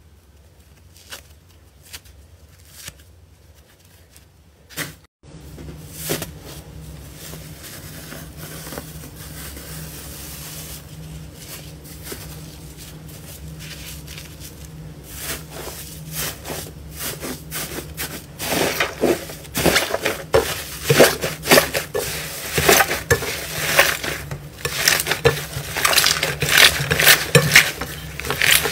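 Textured slime crackling and popping as hands stretch, tear and squeeze it. The crackles are faint and sparse at first; after a sudden change about five seconds in they run over a steady low hum and grow dense and loud from about two-thirds of the way in.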